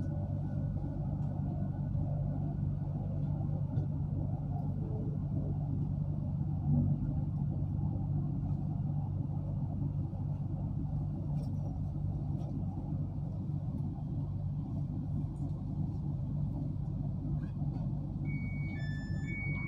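Passenger train running, heard from inside the carriage: a steady low rumble, with a few short high tones near the end.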